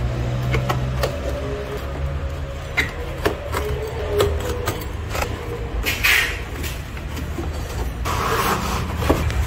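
Cardboard box being cut open with a cutter: sharp clicks and scraping as the blade goes through the box, then bursts of cardboard scraping about six seconds in and near the end as the flaps are pulled open, over background music.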